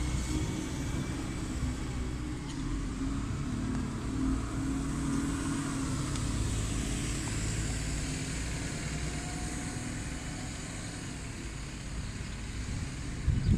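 Single-decker bus engine running as the bus moves off, its hum slowly fading.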